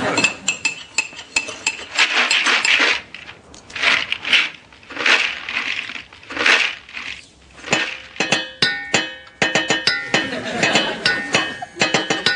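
Kitchen clatter of pots, pans and dishes, with clinking cutlery and glass. From about eight seconds in, a short music cue with sharp struck notes comes in.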